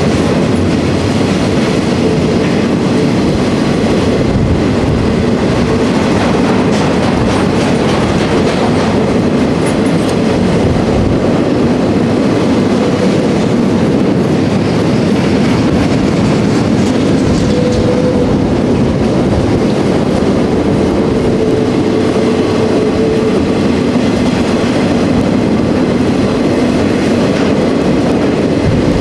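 Empty open-top freight gondolas rolling past on the rails: a steady loud rumble with a rhythmic clickety-clack of wheels over the track, and a faint high wheel tone that comes and goes near the middle.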